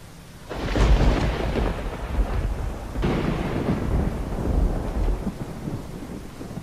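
Thunder rumbling in two long peals over rain: the first breaks suddenly about half a second in, the second about three seconds in, and both fade slowly.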